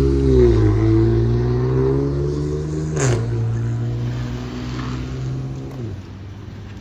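A car's engine accelerating away, its note dropping at a gear change about three seconds in and fading as it goes; the engine sound ends near the end.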